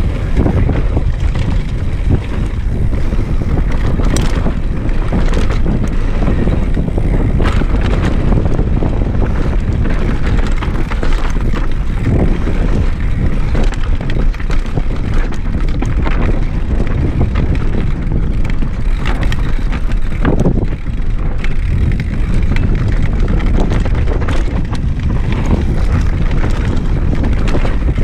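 Downhill mountain bike ridden fast over a dry, rocky dirt trail: wind rushing over the microphone, tyres rumbling on the ground, and scattered sharp knocks and rattles of the bike over bumps and drops.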